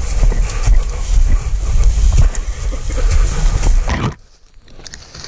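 Footsteps and a crackle of dry leaves, pine straw and brush as hunters drag a freshly killed buck through the undergrowth, under heavy rumble on the microphone. The noise drops off sharply about four seconds in.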